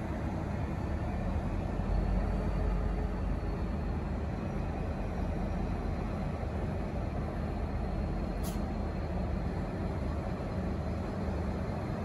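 V/Line N class diesel-electric locomotive's EMD two-stroke V12 engine running with a steady low rumble as it pulls slowly away, no horn sounding. A single brief click about eight seconds in.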